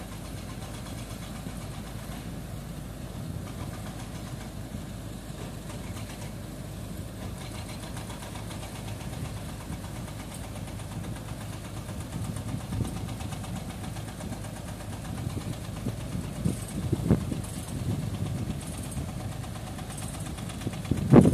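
Heavy diesel engine idling steadily. It gets louder in the second half, with a few short surges in revs near the end.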